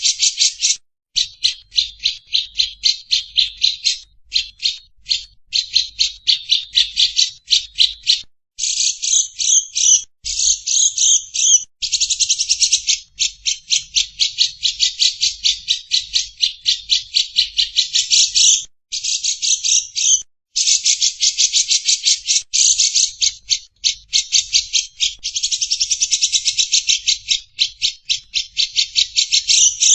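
A bird chattering in long runs of rapid, harsh, scratchy notes, many per second, each run lasting a few seconds with brief pauses between.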